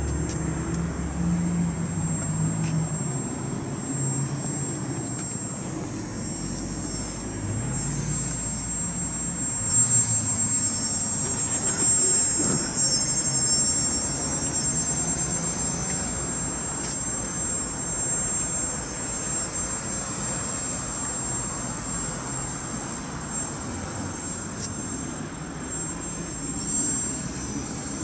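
Motor and propeller of a radio-controlled paramotor (an Oxy 1.0 single-skin paraglider wing) in flight: a steady high whine that wavers in pitch, over a low rumble.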